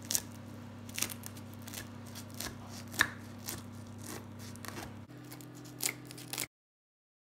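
Knife slicing through the crisp, pan-fried yufka pastry of a börek: scattered faint crackles and crunches as the flaky, buttery layers break under the blade, about one a second. The sound cuts off abruptly near the end.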